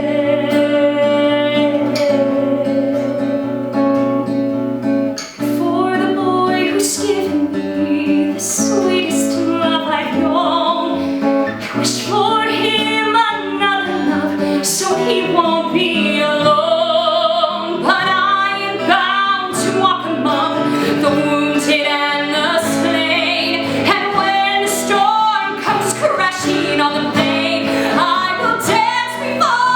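A woman singing with acoustic guitar accompaniment. She holds one long note for the first few seconds, then moves into a flowing melody over the plucked and strummed guitar.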